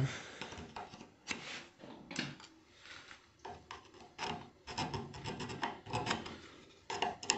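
A small hand file rasping in irregular short strokes at the edge of a hole in an aluminium air-conditioning tube, taking off the thin, worn-away metal around it before welding.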